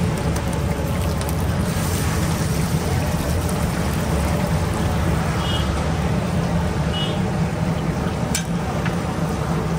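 Steady low rumble of street traffic and engines, with a sharp click about eight seconds in.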